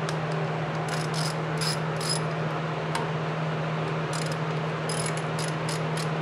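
Socket ratchet clicking in short bursts as the water pump's nuts are backed off, with a steady low hum underneath.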